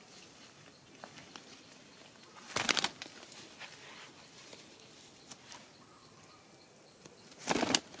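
A green parrot's wings flapping in two short bursts, about three seconds in and again near the end, as it flies onto and then off a tree trunk.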